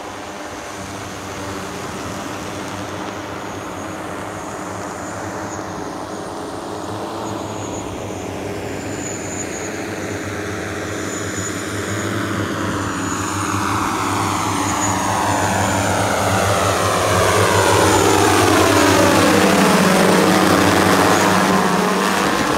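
Propellers of a manned multirotor flying platform running with a steady many-propeller hum. It grows louder as the craft comes closer, is loudest about three-quarters of the way through, and its tone sweeps as it passes close.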